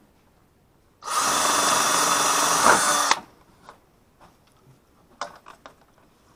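Cordless drill running at speed for about two seconds, boring a hole through a thin white panel, then stopping abruptly. A few light clicks and knocks follow.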